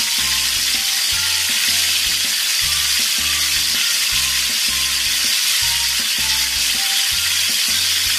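Marinated chicken pieces deep-frying in hot oil in a karahi: a steady, loud sizzle. Background music with a repeating low beat plays underneath.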